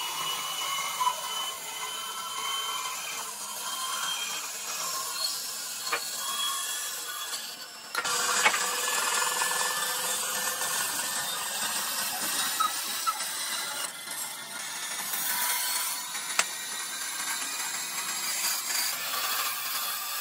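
A woodworking tool working on wood: a steady hissing, scraping noise with a faint whine. It gets suddenly louder about eight seconds in.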